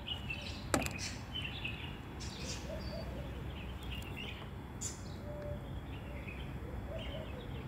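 Faint outdoor background: a low steady rumble with scattered distant bird chirps, and one sharp click about a second in.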